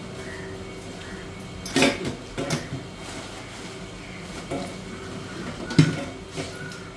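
A large stainless steel storage drum and its lid being handled and set in place: several sharp metal knocks and clanks, the loudest near the end.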